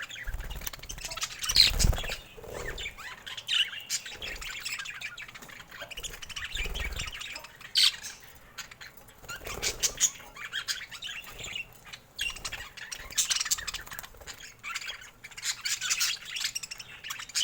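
Budgerigars chirping and chattering in quick, irregular squawks and tweets, with a few low thumps among them.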